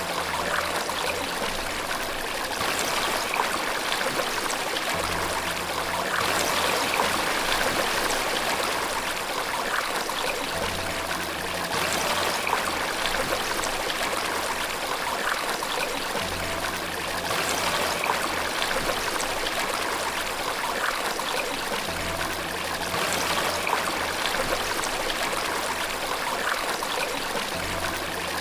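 Steady rushing, splashing water. A faint low note swells in and out about every six seconds underneath it.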